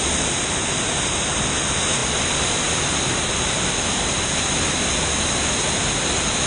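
Steady rushing of a swollen mountain river's whitewater through a boulder-choked canyon, an even, unbroken rush of noise.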